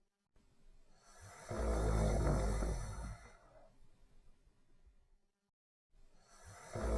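Snoring during sleep: one long snore of about two seconds in the first half, a quieter stretch of breathing, then the next snore starting near the end.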